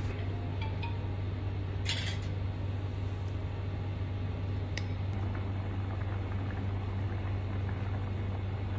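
Soup simmering in an electric hot pot over a steady low hum. A utensil clatters briefly about two seconds in, and a single sharp click follows a few seconds later.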